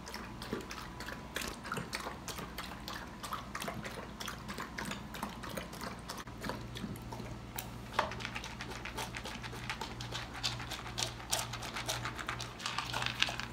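Doberman puppy eating dry kibble from a bowl: many quick, irregular crunches and clicks, over a steady low hum.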